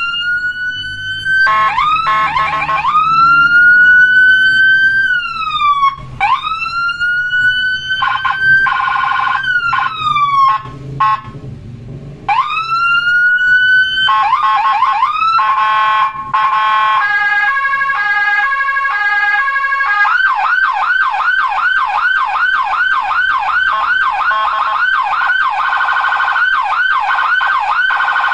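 Electronic siren tones from a phone siren app, cycling through patterns: long rising-and-falling wails broken by short fast warbles, a two-tone hi-lo pattern about two-thirds of the way in, then a rapid yelp of about two sweeps a second to the end.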